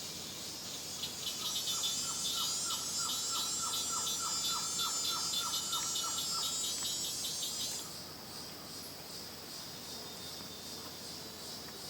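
Tropical rainforest insect chorus: a dense, high-pitched trilling and pulsing that swells about a second in and drops away suddenly about eight seconds in. Over it a short falling note repeats about three times a second for some five seconds.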